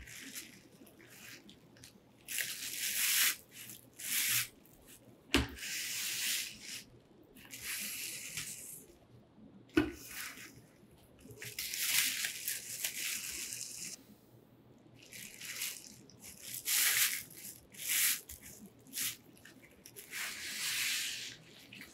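Bubble wrap rustling and crinkling as it is unwrapped by hand, in repeated bursts of about half a second to two seconds, with a couple of sharp knocks between them.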